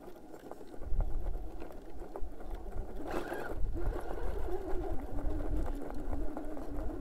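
RC rock crawler's Hobbywing Fusion brushless motor and drivetrain whining under load while slow-crawling, with scattered clicks and scrabbling as the tire works for a bite on the granite ledge. A steady whine sets in about halfway through.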